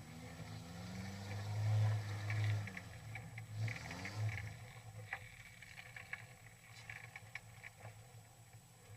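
Modified off-road 4x4's engine revving in a few swells, rising in pitch, then dropping back to a steadier run. Scattered sharp knocks and rattles sound through the second half.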